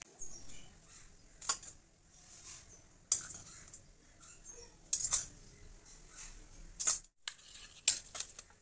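Steel spoon clinking and scraping against a stainless steel plate and a glass bowl as food is served: about five sharp clinks spread out, with light scraping between them.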